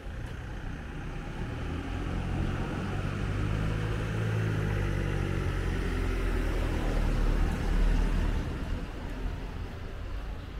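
A car driving past at low speed: its engine rumble grows louder over several seconds, is loudest about three quarters of the way through, then fades away.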